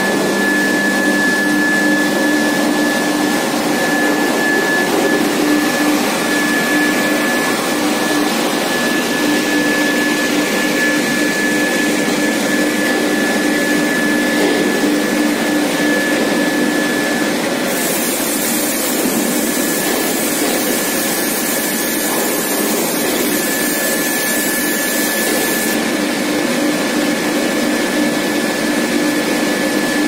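Steel bar induction hardening and tempering line running: a steady machine noise with a high, constant whine and a lower hum. A hiss joins in a little past halfway and stops about eight seconds later.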